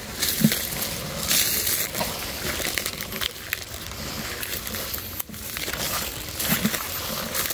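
Irregular crunching and rustling of dry leaves and low plants, as of footsteps through dry undergrowth.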